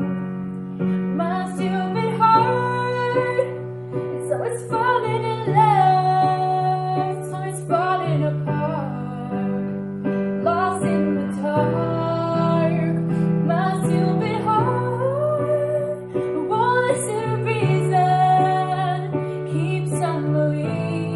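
Pop ballad: a female voice sings the chorus over sustained keyboard and guitar accompaniment.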